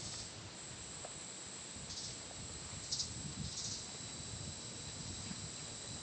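Rainforest insects calling: a steady high-pitched buzz, with a few short bursts of chirping. Soft footsteps and movement on the trail sound underneath.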